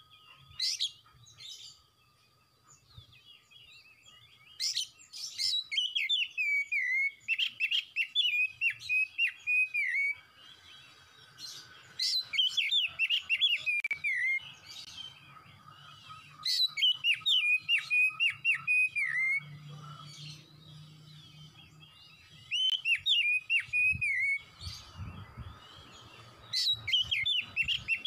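Oriental magpie-robin (kacer) singing a loud whistled song of fast, gliding high notes. It comes in phrases a few seconds long with short pauses between.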